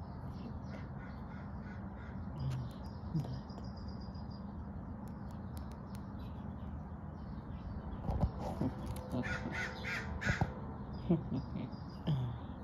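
A crow cawing about four times in quick succession in the second half, with small birds chirping faintly throughout over a steady background hum.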